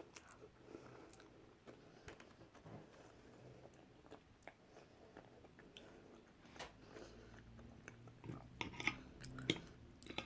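A person chewing a mouthful of food close to the microphone, with a run of sharper clicks near the end like cutlery on a plate.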